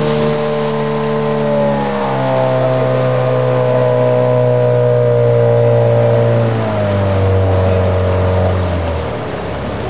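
Boat outboard motor running, its pitch stepping down about two seconds in, again near seven seconds and once more near nine seconds as the engine slows, a little quieter after the last step.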